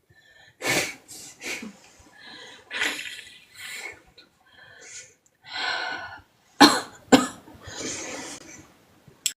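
A sleeping woman's breath puffing out through the mouth in a quick, irregular run of short breathy bursts. Two sharp bursts about two-thirds of the way through are the loudest.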